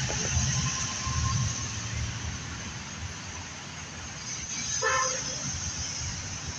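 Low rumble of city street traffic under the elevated L tracks, with a short horn toot a little under five seconds in.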